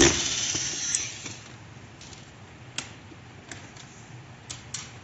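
Corded electric screwdriver running for about a second, backing a screw out of a robot vacuum's plastic housing. Then a few light, separate plastic clicks and taps as the loosened parts are handled.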